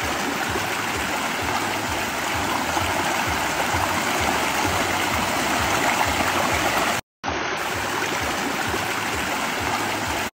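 A fast rocky stream rushing and splashing over stones, a steady rush of water, broken off for a moment about seven seconds in.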